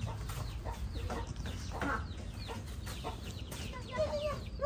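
Chickens clucking: short calls scattered throughout, with a longer call about four seconds in, over a low steady rumble.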